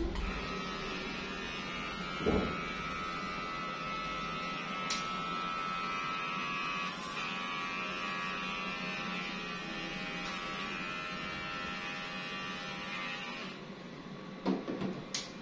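Small handheld electric hair clipper running steadily with a high whine, clipping a baby monkey's belly fur; it cuts off a little before the end. There is a soft knock about two seconds in, and a couple of clicks after the clipper stops.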